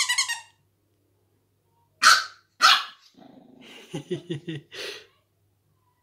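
Pug puppy barking: two sharp, high barks about two seconds in, then a low, pulsing growl with small woofs, ending in one more bark about five seconds in.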